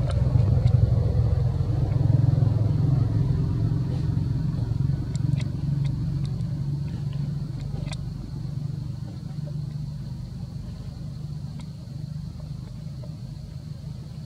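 Low steady rumble of a running engine, loudest in the first few seconds and slowly fading, with a faint high steady tone and a few faint sharp clicks.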